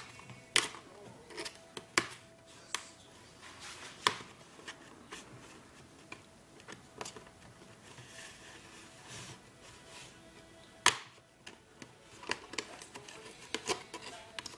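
Plastic snap clips of an Asus N56V laptop's top case clicking loose as the case is pried and pulled away from the base: a dozen or so sharp clicks and snaps at irregular intervals, the loudest about eleven seconds in.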